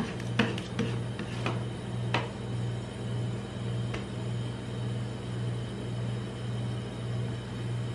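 Metal spatulas tapping and scraping on a stainless-steel rolled-ice-cream cold plate as ice cream is chopped and spread: several sharp taps in the first couple of seconds and one more about four seconds in. A steady low hum that pulses about twice a second runs underneath.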